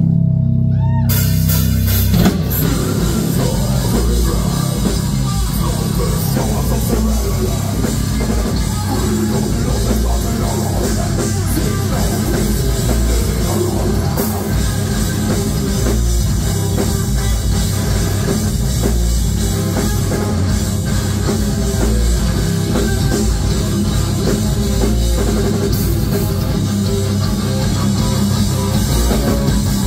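Heavy metal band playing live: distorted electric guitars, bass guitar and drum kit. A few held low notes ring for about the first two seconds, then the full band comes in with the drums and plays on at a steady loud level.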